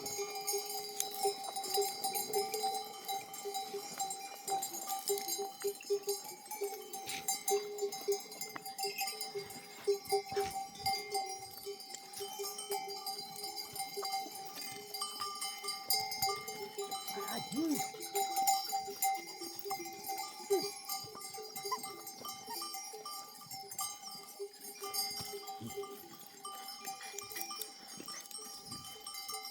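Bells worn by a grazing flock of sheep clanking and ringing without a break as the animals move, with a brief sheep bleat about halfway through.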